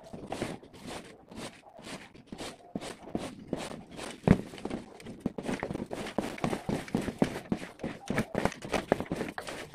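Battery-powered mini chainsaw cutting through a tree branch: a dense, irregular rattle of sharp clicks as the chain bites into the wood, with one loud knock about four seconds in.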